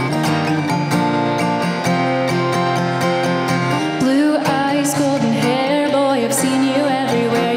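Solo acoustic guitar playing a song intro, joined about four seconds in by a woman singing the first line.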